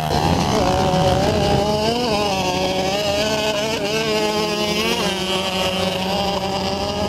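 Small off-road vehicle engine running at high, fairly steady revs, its pitch wavering slightly with small rises about two and five seconds in.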